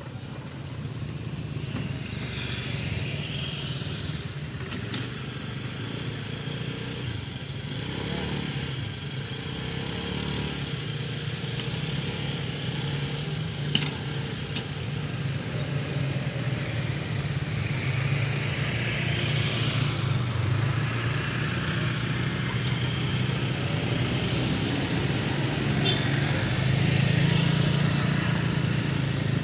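Road traffic at low speed: small motorcycle engines and a car engine running steadily as vehicles pass, growing louder near the end as a motorcycle rides close by.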